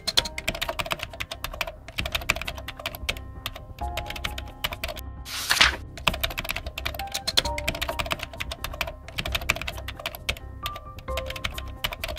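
Rapid keyboard-typing clicks, a sound effect for on-screen text being typed out letter by letter, over soft background music with held notes. A brief burst of hissing noise about five and a half seconds in.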